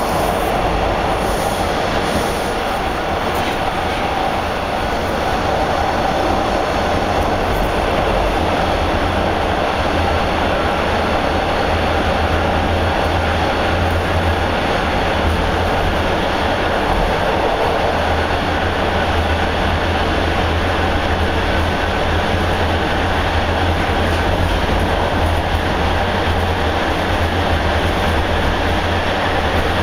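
Interior of a TTC Bombardier T1 subway car running between stations: a steady rumble of wheels on rail and running gear, heard from inside the car, with the low rumble growing heavier about six seconds in.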